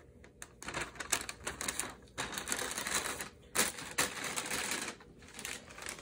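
Brown paper bag crinkling and rustling as it is handled and a TV remote control is put into it, a dense run of crackles with a few sharper snaps.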